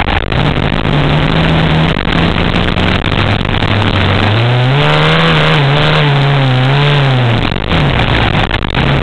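Dirt bike engine running hard over sand. About four seconds in the revs rise and waver up and down for about three seconds as the bike climbs a dune, then drop, with wind rushing over the microphone.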